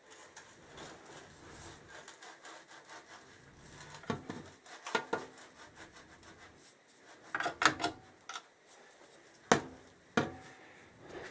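Motorcycle exhaust being worked back into place by hand: metal scraping and rubbing, with several sharp knocks in the second half.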